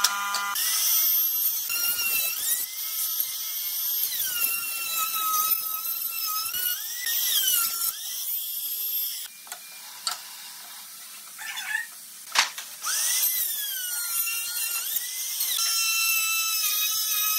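Compact trim router running at high speed, a high whine whose pitch sags as the bit bites into the pine board and climbs back as it frees. Quieter for a few seconds past the middle, broken by one sharp knock.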